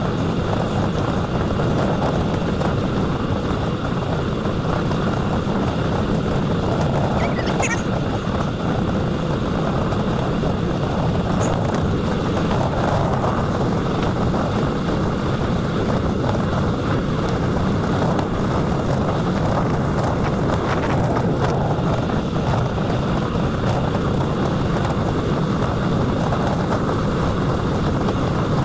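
Steady wind rush buffeting the microphone of a bike-mounted camera while cycling at speed on a paved road.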